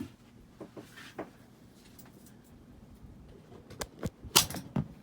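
Hunter Brighton ceiling fan running on high speed: a faint steady motor hum, with scattered clicks and knocks over it, the loudest a sharp click about four seconds in.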